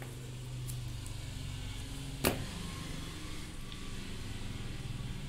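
A steady low mechanical hum, with one sharp click a little over two seconds in.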